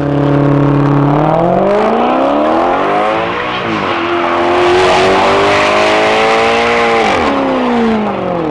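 Maserati GranTurismo's V8 engine revving under acceleration. Its pitch climbs, dips briefly about three and a half seconds in, climbs again, then falls away near the end.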